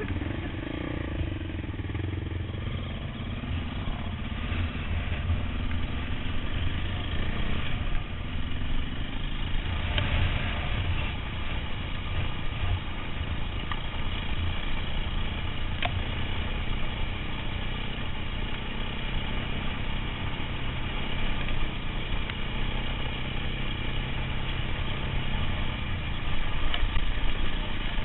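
KTM trail bike engine running steadily while being ridden along a rough dirt track, heard close from a helmet-mounted camera. It gets somewhat louder near the end.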